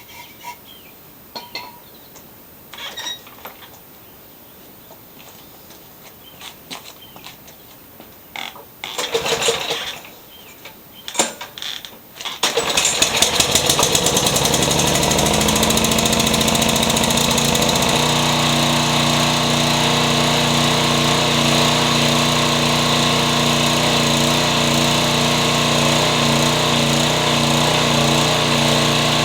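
A few clicks and handling knocks, then a Toro Super Recycler walk-behind mower's engine starts about halfway in and keeps running steadily. Its pitch settles a few seconds after it catches.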